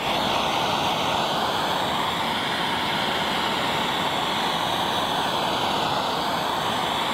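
Propane lance torch burning with a steady hiss as its flame is played across an oak board to scorch the surface.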